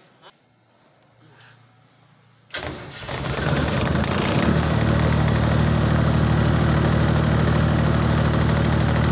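Mobile lighting tower's generator engine starting: after a quiet couple of seconds the starter cranks briefly, the engine catches and within about a second settles into a steady, even run.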